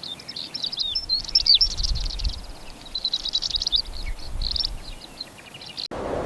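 Small birds chirping and twittering, many quick calls overlapping in a busy chorus over a faint low rumble, cut off abruptly just before the end.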